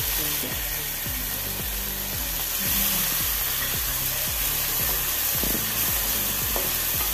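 Chopped tomatoes and onions sizzling in hot oil in an aluminium pan, stirred with a wooden spatula that now and then knocks and scrapes on the pan.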